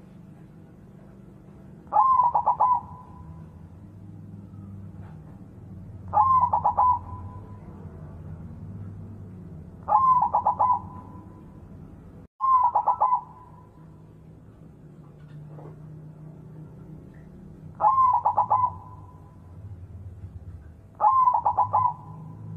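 White zebra dove (perkutut putih) singing its cooing song: six short phrases of quick rippling coo notes, each under a second, repeated about every three to four seconds over a faint low hum.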